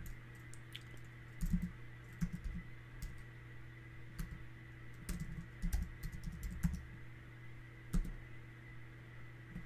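Computer keyboard typing in several short bursts of keystrokes, the longest run about halfway through.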